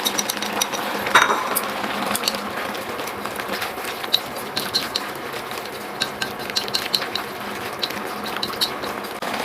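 Utensils clinking and scraping against cookware as food is stirred, over a steady hiss, with one clear ringing clink about a second in.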